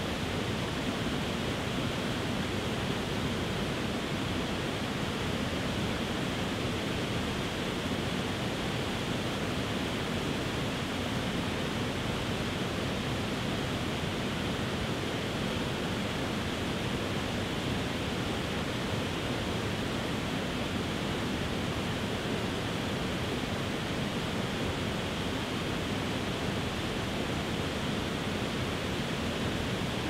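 Multi-tiered waterfall pouring over rock ledges: a steady, even rush of falling water.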